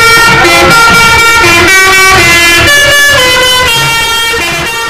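Musical multi-tone 'telolet' air horn of an Indonesian bus playing a loud stepping tune as the bus passes, fading away near the end.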